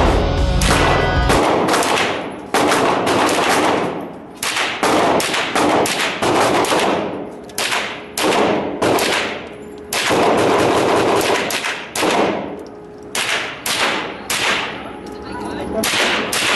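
Gunshots in quick strings, one to two a second with short pauses between strings, each with a brief ringing tail. Background music stops about a second in.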